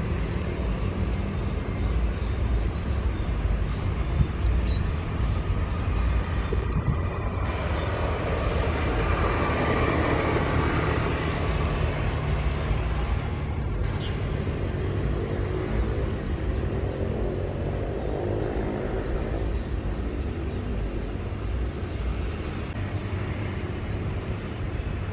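Airbus A330 airliner's jet engines roaring during the landing roll. The roar swells to a peak early in the rollout, typical of reverse thrust, then eases off with a falling whine as the engines spool down.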